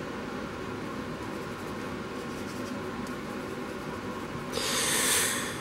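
Faint scratching of a stiff, frayed paintbrush dry-brushing paint onto a plastic HO-scale locomotive truck, over a steady low room hum and hiss. About four and a half seconds in, a louder rasping hiss lasts about a second.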